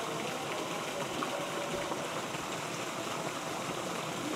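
Steady rush of running water, an even hiss like a stream or small waterfall.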